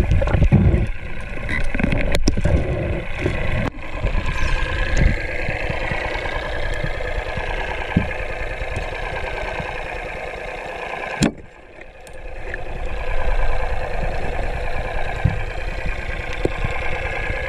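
Muffled underwater sound picked up through a camera housing: a steady engine drone from a boat motor carried through the water, with a few knocks and a sharp click followed by a brief dip about two-thirds of the way through.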